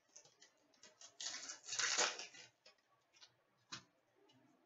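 Hockey trading cards being handled and laid down on a glass counter: a rustling stretch starting a little over a second in and loudest about two seconds in, with a few light taps.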